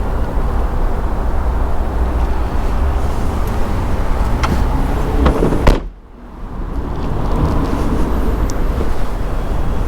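Outdoor ambience with a steady low rumble like wind on the microphone and a few light knocks. About six seconds in comes a loud thump, after which the sound drops away briefly and then fades back in.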